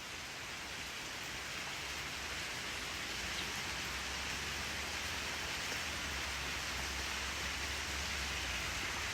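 Steady hiss of rain falling, with a low rumble from about two seconds in that stops just before the end.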